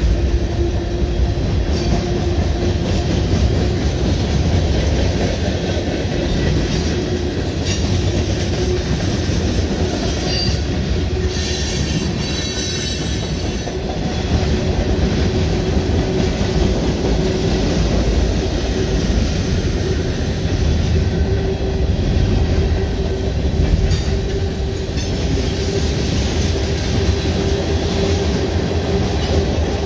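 Freight cars of a long mixed freight train rolling past close by: a steady rumble of steel wheels on rail, with a faint steady wheel squeal and a louder, high-pitched squeal from about eleven to fourteen seconds in.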